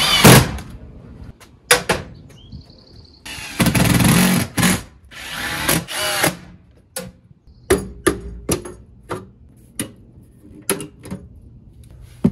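Cordless drill driving screws to fasten an electrical subpanel box to a house wall: three short runs of the motor in the first six seconds. After that comes a string of sharp clicks and knocks.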